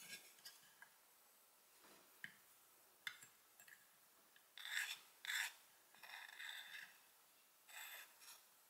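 A tiny knife blade scraping across a small wooden cutting board, sweeping chopped onion off into a small metal bowl in several short strokes, the two loudest about halfway through. A few light ticks come before them as the little metal bowl is set down.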